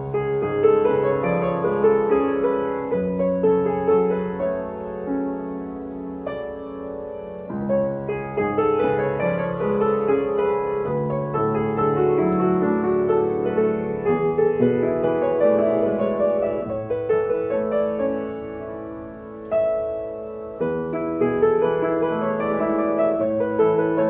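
W.Hoffmann T128 Tradition upright piano being played: a melody over held chords, the notes left ringing, with new phrases starting about seven and about twenty seconds in.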